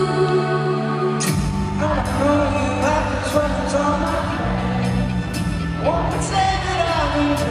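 Live band music in an arena, recorded from the crowd. A guitar-led passage plays, then bass and drums come in about a second in, and a man sings lead into a microphone.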